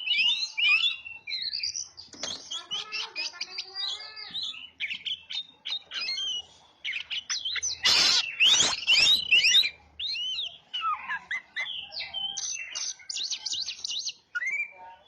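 Oriental magpie-robin (kacer) singing a continuous, varied song of quick whistles and chirps, with a louder, harsher stretch about eight seconds in.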